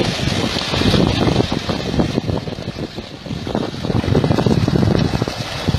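Water splashing and churning at a river's surface as fish thrash in a feeding frenzy, mixed with wind buffeting the microphone.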